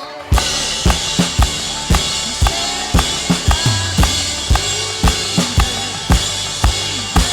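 Drum kit playing a steady rock beat, kick drum and snare strikes about twice a second, with a band's bass and other instruments. The drums come in hard about half a second in, after a quieter passage.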